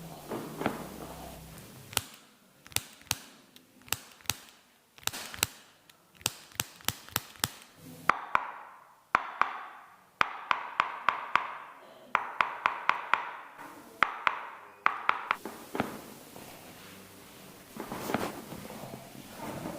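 A long series of sharp taps, about two a second at first. From about eight seconds in they come in quicker runs of about four a second over a soft hiss, and they stop about sixteen seconds in.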